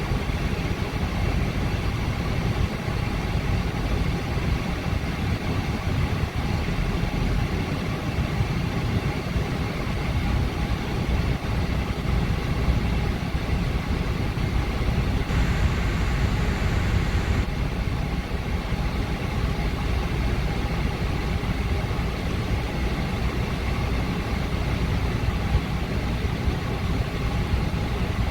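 A 2011 Honda CR-V's four-cylinder engine idling steadily with the air conditioning running. There is a brief hiss for about two seconds around the middle.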